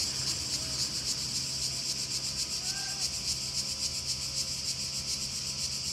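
Cicadas calling in a steady, high-pitched chorus, with a low steady hum underneath.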